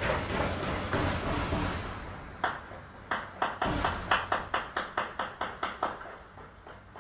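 Celebratory gunfire fired into the air, heard from inside a room. After about two seconds of noise comes a quick run of a dozen or so sharp shots, about four or five a second, which stops about six seconds in.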